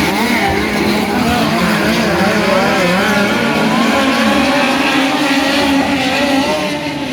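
A pack of midget race cars at racing speed, several engines rising and falling in pitch together as they lap.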